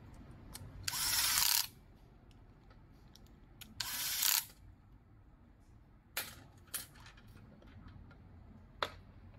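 A small cordless electric screwdriver running in two short spurts, driving screws into a plastic RC-car suspension arm. A few sharp clicks follow in the second half as the plastic parts are set down on the table.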